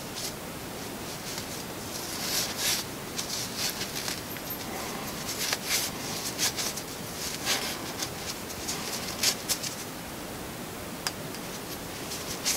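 A cotton shop rag wiping the oily shaft and turbine wheel of a dismantled turbocharger: an irregular scratchy rubbing in short strokes.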